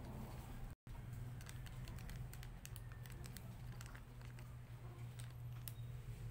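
Small clear plastic jewelry bags crinkling and rustling in the hands as they are opened, with many light scattered clicks, over a steady low hum. The sound drops out for a split second about a second in.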